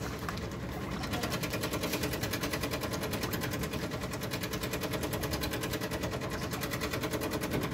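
Coffee vending machine running during a rinse cycle, its internal mechanism making a steady, rapid, even pulsing several times a second.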